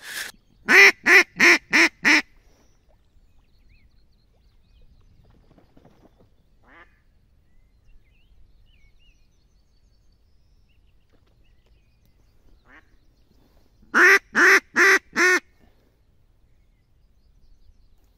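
Live decoy hen duck on the water quacking to lure drakes: a run of about five loud quacks about a second in, then a second run of about five near the end.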